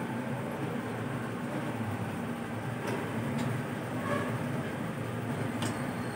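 A steady low hum with a faint hiss, and a few faint light clicks around the middle and near the end.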